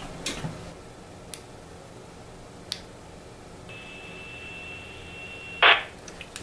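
A handheld two-metre ham transceiver is fitted onto an antenna coax connector, with a few small handling clicks. Then a steady high beep lasts about two seconds and ends in a short, loud burst of noise.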